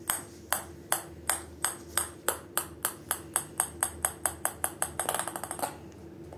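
A small ball bouncing on a wooden parquet floor. Each bounce is a sharp ringing click, and the bounces come faster and faster until they merge into a quick rattle and stop as the ball comes to rest, a little before six seconds in.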